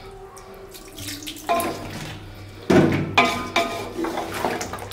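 A little water poured into a pot of simmering chicken korma, then a metal spoon stirring and knocking against the pot several times in the second half.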